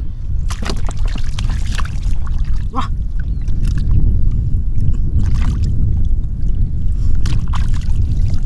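Splashing and squelching in shallow muddy water, a string of short wet splashes at irregular intervals over a steady low rumble.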